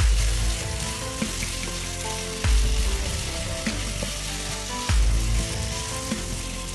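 Chicken and onion sizzling in ghee in a non-stick frying pan while being stirred, a steady frying hiss. A low hum swells briefly three times, at the start, about two and a half seconds in and about five seconds in, louder than the sizzle.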